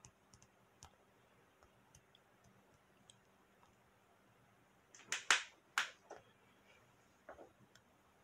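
Quiet room with scattered faint ticks and a brief cluster of four or five sharp clicks or taps about five seconds in, then a faint tap a little later.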